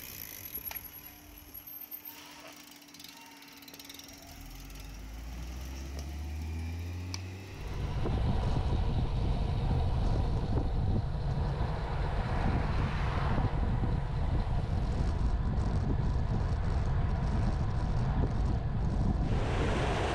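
Road bikes passing with light clicking from their freewheels, and a low hum rising in pitch. From about eight seconds in, a loud, steady rush of wind on the microphone of a camera riding along with the bikes.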